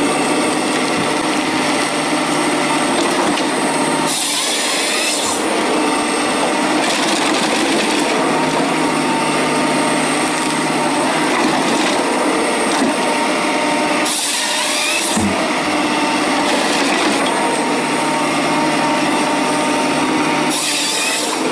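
Forestry harvester at work: a steady engine and hydraulic drone as the harvester head feeds and delimbs a felled tree. Three brief bursts of rushing noise, about four, fourteen and twenty-one seconds in, are the head's chain saw bar cutting through the stem.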